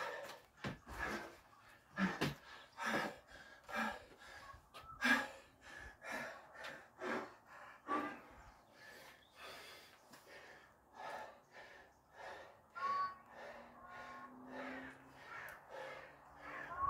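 A man breathing hard through his mouth, quick heavy gasps about one to two a second: out of breath after a hard burpee-and-rowing workout.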